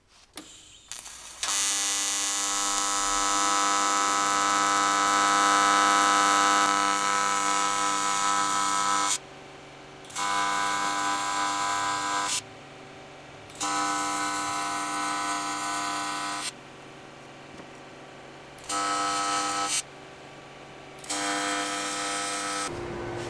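AC TIG welding arc on an aluminum fuel cell, buzzing steadily: one long weld of about eight seconds, then four shorter ones of one to three seconds each. A low steady hum carries on between them.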